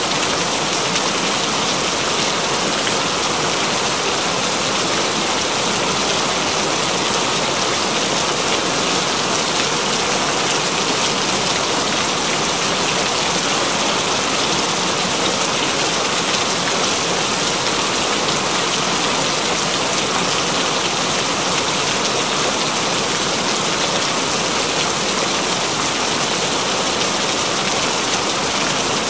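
Steady rain falling, an even, unbroken hiss with no let-up.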